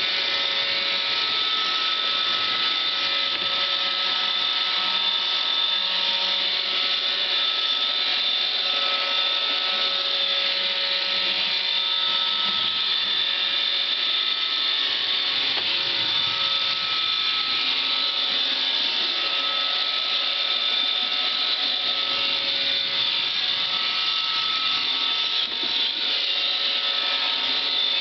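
iRobot Roomba 550 robot vacuum running close up: a steady whir of its vacuum motor and brushes, with a higher tone that comes and goes every couple of seconds as it drives across the floor.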